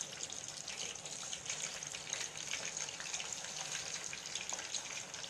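Chicken pieces frying in hot oil in a kadhai: a steady sizzle with dense, fine crackling.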